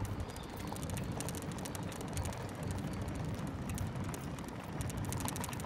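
Bicycle freewheel ticking rapidly while coasting, over a low rumble of tyres and wind on a brick-paved street.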